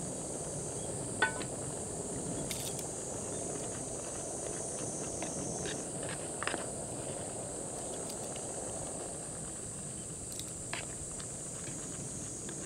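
Steady high-pitched insect buzzing over a low steady rush. About a second in there is a sharp metallic clink, followed by light clicks and scrapes as pasta is turned with tongs in an aluminium mess tin.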